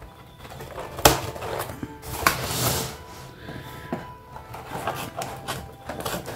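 Scissors cutting through a corrugated cardboard box: a sharp snip about a second in, a longer scraping cut around two seconds in, then a run of small crunching snips. Music from a nearby sound system plays in the background.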